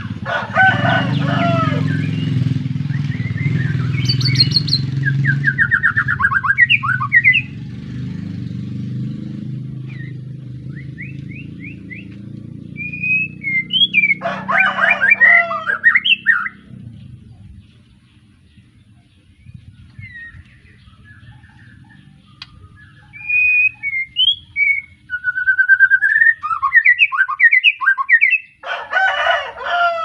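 Young white-rumped shama, just out of its spotted juvenile plumage, singing varied whistled and sliding phrases broken by three dense, harsh chattering bursts. A low rumble runs underneath and fades out a little past halfway.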